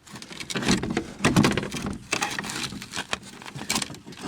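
Plastic engine splash shield being pushed and shifted into position under a car: irregular scraping, rustling and light knocks of plastic against the underbody.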